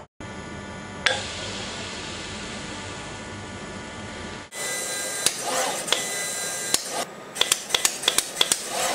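Automated conformal coating machine with an SV70 coating valve running. First a steady mechanical hum with one sharp click about a second in. Then, after a break, scattered sharp clicks that become a regular run of about five a second in the last second and a half.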